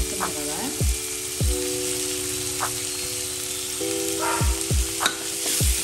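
Chopped onions, tomatoes and green chillies sizzling steadily in hot oil in a kadai as the masala base is sautéed. Background music plays over it: low held chords with a few deep booms.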